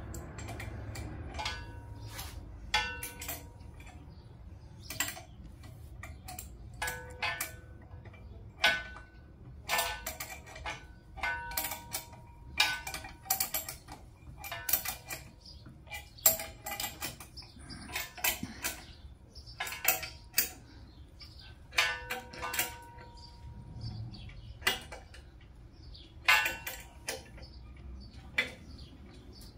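Metal hand tools and steel parts clinking and clanking together at irregular intervals, about one knock a second, several of them ringing briefly like a struck wrench or socket.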